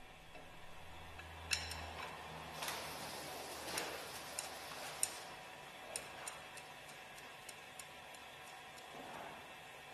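Faint, sharp metal clicks and taps at uneven intervals as hex head screws are handled and set by hand into the brake housing cover of a Westfalia separator.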